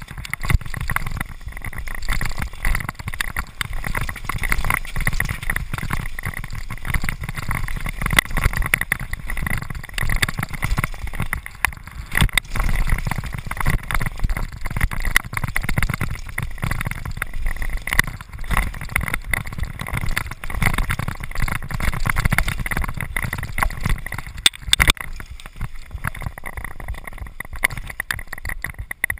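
Downhill mountain bike running fast down a rough dirt trail, heard from a body-mounted GoPro: wind rumbling on the microphone, with constant rattling and frequent sharp knocks from the bike and its suspension over the bumps.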